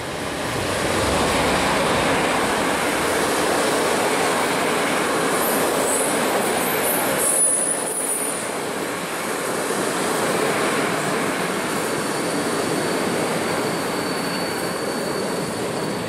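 PKP Intercity EU07 electric locomotive and its passenger coaches passing close by, a steady rumble of wheels on rail that builds over the first couple of seconds. About halfway through come brief high wheel squeals, and a thin high whine lingers in the last few seconds as the coaches roll by.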